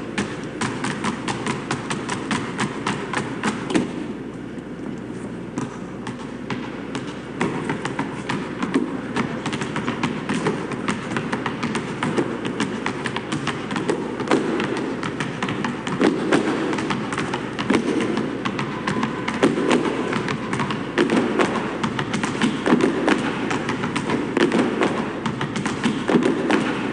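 Several basketballs dribbled on asphalt in a fast, interlocking rhythm: many bounces a second, with sharper slaps of hands on the balls. About four seconds in, the bouncing thins out and turns quieter for a couple of seconds, then builds back up, with heavier bounces through the second half.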